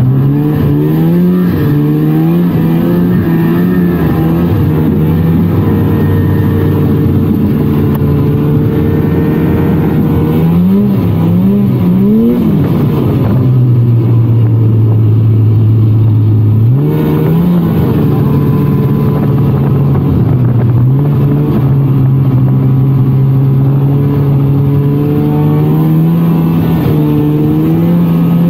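1999 Polaris snowmobile's two-stroke engine running under way, its pitch rising and falling with the throttle. About halfway through it drops to a lower steady note for a few seconds, then climbs again.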